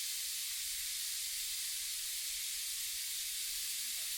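Chicken pieces sizzling steadily as they fry in hot olive oil.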